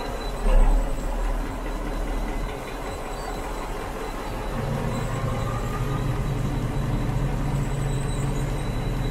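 A motor yacht's inboard engine running steadily at low speed, a constant low rumble heard from inside the cabin, with a brief loud thump about half a second in.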